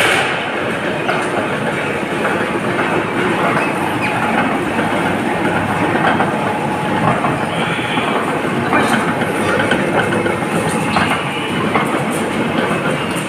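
Large-capacity industrial stainless-steel juicer running under load as fruit is fed through it, a steady dense mechanical noise with scattered clicks and a few sharper knocks near the end.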